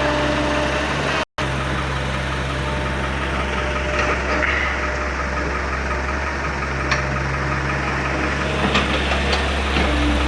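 Hydraulic excavator's diesel engine running steadily, with a few sharp clicks in the second half.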